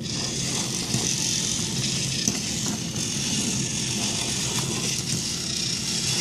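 Small electric motors of remote-control sumo wrestling toys whirring steadily as they push against each other, with a few faint clicks.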